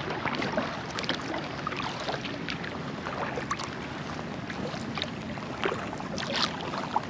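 Kayak paddle strokes in lake water: the blade dipping and pulling, with irregular small splashes and drips over a steady water wash.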